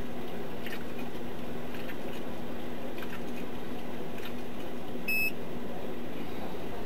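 Steady hiss and low hum inside a police cruiser, with faint clicks about once a second and a single short, high electronic beep about five seconds in.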